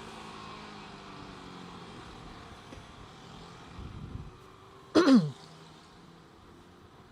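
Motorcycle engine running and slowly dropping in pitch and loudness as the bike eases off, heard through a helmet-mounted mic. About five seconds in, one loud, short sound falls sharply in pitch.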